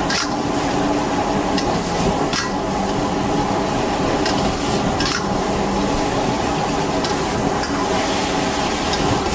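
Beef stir-frying in a street-stall wok: steady sizzling with a metal spatula scraping and stirring, and a few sharp clanks against the wok. A steady hum runs underneath.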